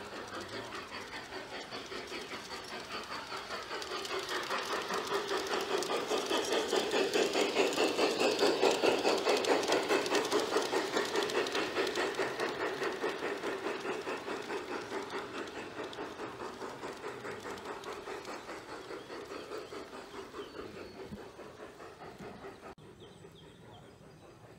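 G-scale model steam locomotive chuffing in a steady rapid rhythm as it runs past with its freight cars. It grows louder to about nine seconds in, then fades as it moves away.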